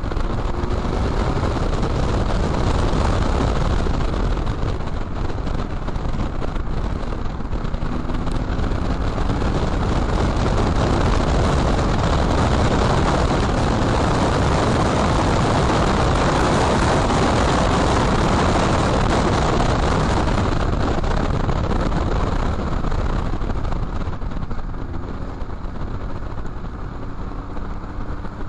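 Porsche 911's flat-six engine accelerating, heard from outside the car's bodywork, under a loud rush of wind and tyre noise on the wet track. The engine note rises near the start and again near the end, and the rushing noise is loudest in the middle.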